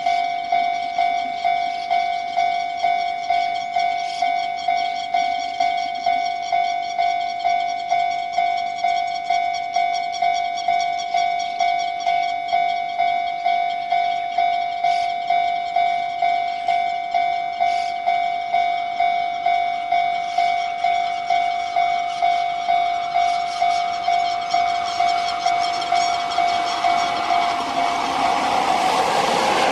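Japanese level-crossing warning bell ringing steadily at about two strokes a second, a signal that a train is approaching. In the last few seconds the noise of an approaching freight train rises over it.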